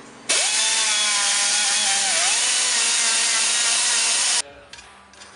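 Die grinder with a wire wheel brush, starting abruptly and spinning up to a steady hissing whine as it scrubs an old metal flange gasket clean. The whine dips briefly about two seconds in, then the tool cuts off after about four seconds.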